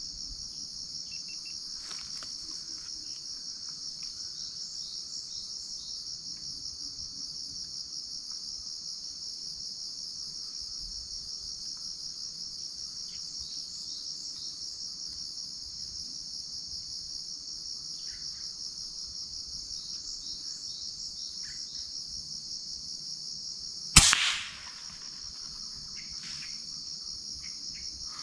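A steady, shrill chorus of insects, pulsing slightly. Near the end, a single sharp shot from a PCP air rifle that dies away within about half a second.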